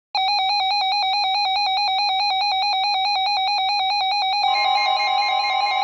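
Midland WR-120 weather radio sounding its alert: a rapid, high pulsing beep. About four and a half seconds in, a steady NOAA Weather Radio warning tone and the hiss of the received broadcast join the beeping.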